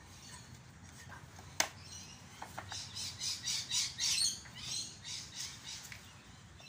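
A bird calling in a quick run of high chirps, some sliding in pitch, with a single sharp click about a second and a half in.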